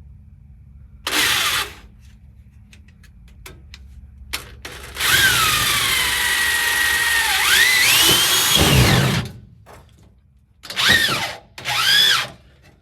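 Power drill driving screws into sheet-metal floor pan: a short burst, then a long run whose pitch sinks as it bears down and climbs again, then two short bursts near the end.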